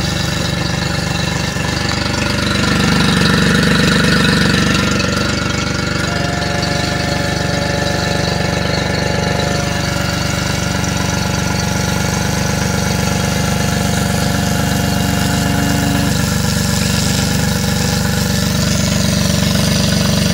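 Yamaha F40 40 hp four-stroke outboard engine idling steadily, swelling a little louder for a couple of seconds about three seconds in.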